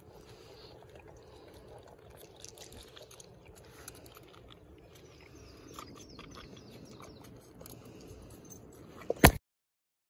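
Goat kid suckling milk from a bottle nipple: soft, faint sucking and slurping with small scattered clicks. A single loud sharp click near the end, after which the sound cuts off.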